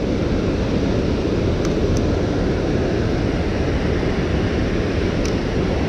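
Steady rushing roar of water pouring over a dam spillway and churning through the shallows below it, with a few faint clicks.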